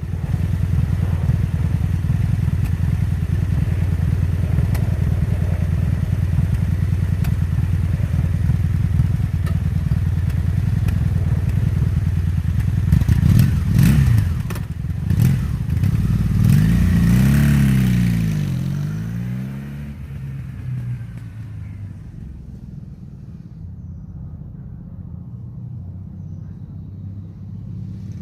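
Honda Magna VF750C V4 motorcycle engine running steadily, revved up and down a few times a little past the middle, then settling to a lower, quieter run. The owner has traced a misfire with some popping to the bike's right side.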